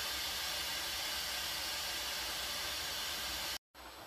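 Krups Cook4Me electric pressure cooker hissing steadily as it vents steam at the end of its cooking cycle, letting the pressure down before the lid can be opened. The hiss cuts off suddenly near the end.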